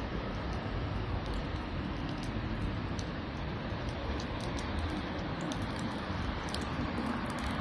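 Steady hiss of rain and traffic on a wet city street, with scattered light ticks of raindrops.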